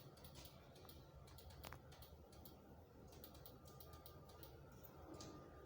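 Near silence broken by many faint, irregular light clicks, like keys being tapped.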